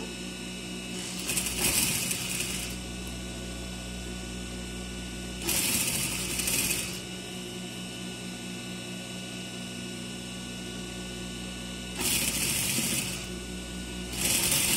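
Industrial flatbed sewing machine stitching in four short runs of about a second each, a few seconds apart, with the steady hum of its motor in between.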